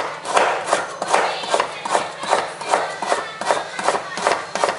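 Kitchen knife slicing lemongrass stalks into thin rounds on a plastic cutting board: a steady rhythm of knife strikes against the board, about two or three a second.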